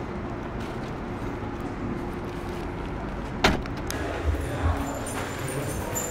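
A door shuts with a single sharp knock about halfway through, over a steady low rumble of background noise, with a few softer thumps after it.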